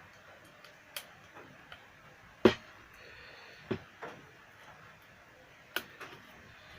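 Handling noise on a workbench: about six separate sharp clicks and knocks of small hard objects being picked up and set down, the loudest about two and a half seconds in.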